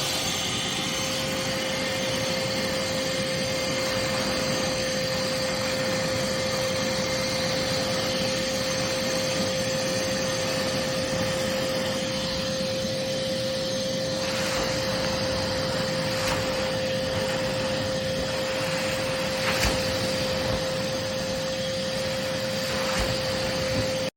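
Vacmaster VBV1210 12-gallon wet/dry shop vacuum running at full power: a steady whine over rushing air. A few brief knocks come in the second half, and the motor cuts off at the end.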